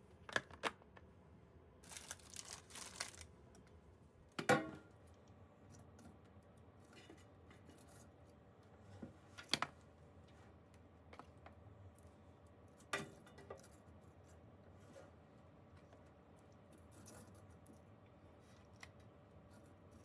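Quiet, sparse handling sounds of objects being picked up and set down: scattered clicks and light knocks, the loudest about four and a half seconds in, with a short hissy stretch about two seconds in.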